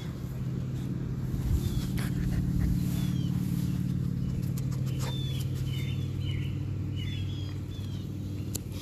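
A steady low motor hum that swells in about a second in and holds, with a few short, high chirps from small birds over it.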